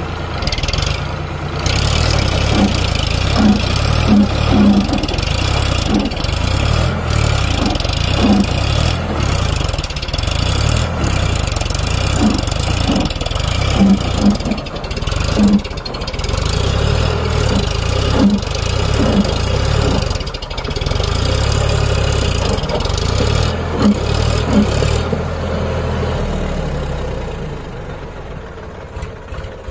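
Farm tractor's diesel engine running while pulling a loaded trolley over dirt: a steady, pulsing low throb with short louder beats over it. It eases off near the end.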